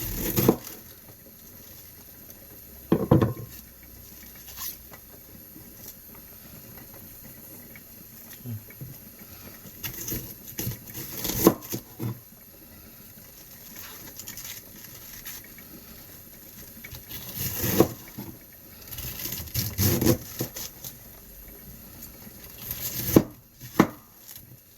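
A kitchen knife slicing cabbage into thin shreds on a cutting board: scattered, irregular knocks and taps with quieter stretches between.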